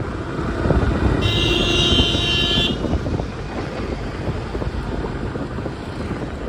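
Wind buffeting the microphone over road and traffic rumble from a moving two-wheeler, with a vehicle horn sounding once, about a second in, for about a second and a half.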